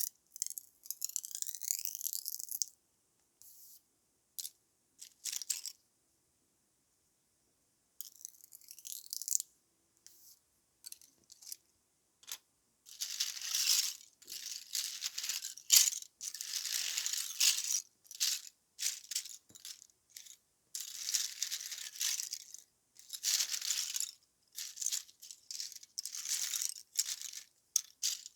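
Dry barley straw crackling and rustling in irregular bursts, separated by short silences. It comes only in scattered bursts at first, then in longer, louder runs from about halfway through.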